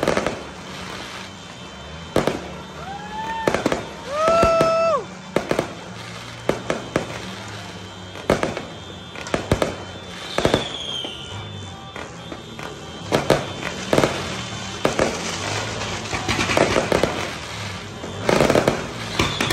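Aerial fireworks going off in an irregular series of sharp bangs and crackles, with louder clusters of bursts near the start and in the last few seconds. About three and four seconds in, two held pitched tones rise and fall over the bangs.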